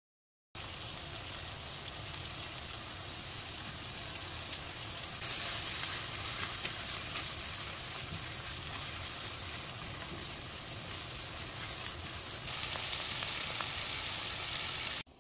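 Food sizzling and crackling as it fries in a hot pan. The sizzle gets louder about five seconds in and again near the end, then cuts off abruptly.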